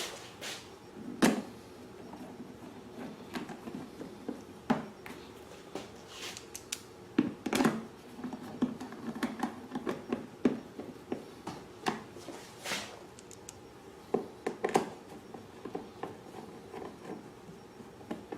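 Irregular clicks, taps and scrapes of hands handling plastic parts: the Predator 2000 inverter generator's plastic side cover being slid down and pushed so its tabs snap into the slots and its buttons into the grommets. A few sharper snaps stand out among the softer handling noise.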